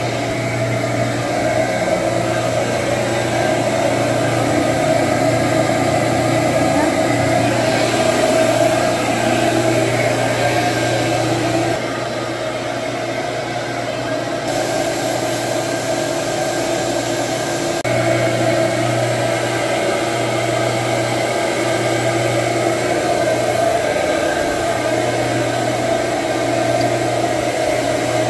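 Nautilus carpet extractor running while its hose and wand shampoo the carpet: a loud, steady motor drone. It drops somewhat in level for several seconds near the middle.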